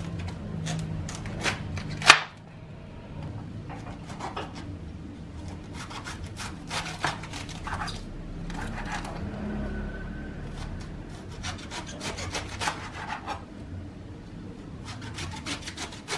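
A kitchen knife cuts through a raw green cabbage head on a plastic cutting board, making crunchy sawing cuts. There is a sharp knock about two seconds in, then runs of quick, crisp strokes as the cabbage is shredded into thin strips.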